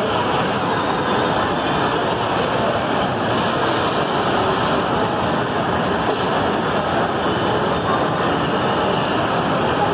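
Steady din of a large indoor shopping-mall hall: an even rumbling hiss with no distinct events, holding the same level throughout.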